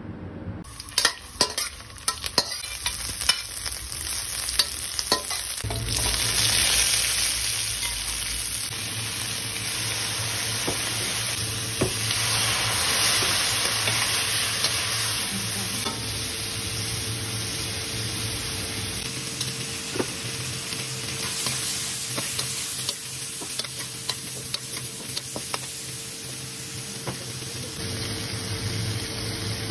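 Whole shrimp stir-frying in a stainless steel wok: a steady sizzle, with a metal spatula scraping and clanking against the pan. The clanks are sharpest in the first few seconds.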